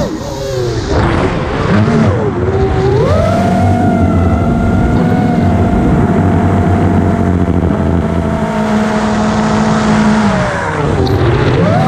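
Brushless motors and propellers of an iFlight DC5 FPV quadcopter whining as the throttle is worked. The pitch drops sharply at the start, dips and climbs again about three seconds in, holds steady for about seven seconds, then drops and climbs once more near the end.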